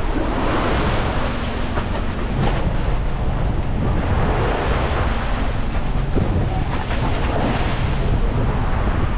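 Rushing wind and sea wash on a fishing boat's deck, swelling and easing over a steady low motor hum.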